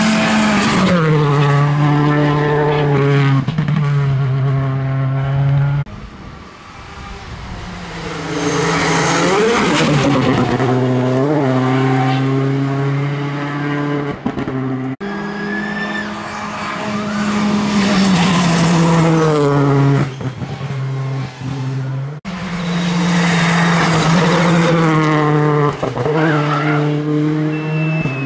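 Citroën C3 Rally2 rally car driven flat out past the roadside in several separate passes, its turbocharged four-cylinder engine climbing in pitch and dropping sharply at each gear change. There is brief tyre squeal in the corners.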